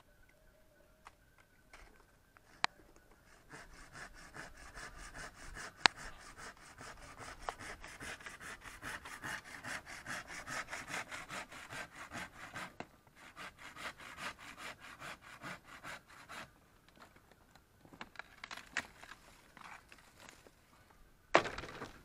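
Quick, evenly repeated rasping strokes, like a hand tool working wood, which build up a few seconds in and stop about three-quarters of the way through. A few sharp clicks stand out, with a louder short burst near the end.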